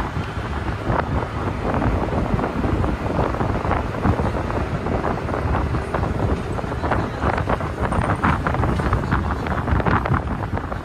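A moving bus heard from a seat at an open window: the engine running and road noise under steady wind buffeting the microphone.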